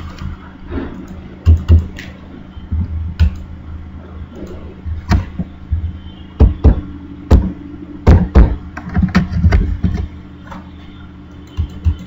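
Irregular knocks and thuds, more than a dozen, over a steady low hum.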